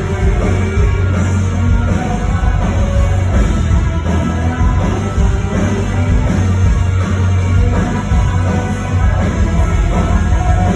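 Rock band playing live at full volume, with heavy bass and drums and a singer's voice over the band.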